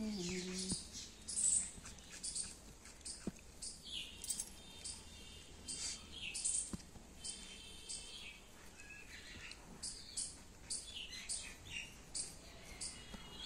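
Small birds chirping: many short, high chirps, coming irregularly and overlapping.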